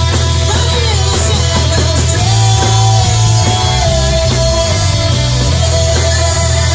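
Live rock band playing: electric guitar, drums and a loud bass, with a long held, slightly wavering lead note from about two seconds in.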